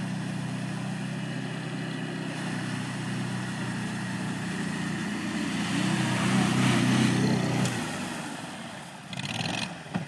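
Engine of a six-wheeled amphibious ATV running steadily as it drives through water. It swells louder a little past halfway, as the machine works up out of the water onto the reedy bank, then eases off.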